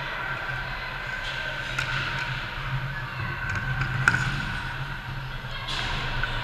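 Ice hockey rink sounds during play: skate blades scraping the ice and sticks and puck clacking over a steady hum. A sharp crack comes just after four seconds, and a skate scrape hisses near the end.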